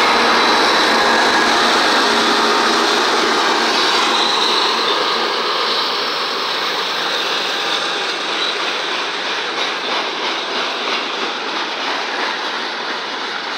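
Freight train passing close by: the GE ES44 diesel locomotives' engines run loud at first and fade as they move off, leaving the steady rolling noise of covered hoppers and loaded centerbeam flatcars, with their wheels clicking rhythmically over the rail.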